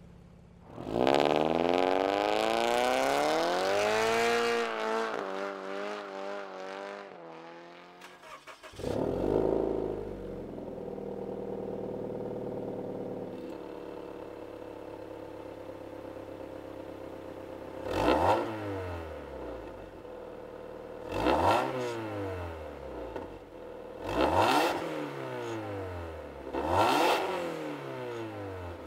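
Toyota GT86's flat-four engine, fitted with a catless Fi Exhaust valvetronic system with the valve closed, starting with a loud flare about nine seconds in and settling to a steady idle, then revved in four short throttle blips, each rising and falling in pitch. Before the start, a swooping electronic logo sound effect.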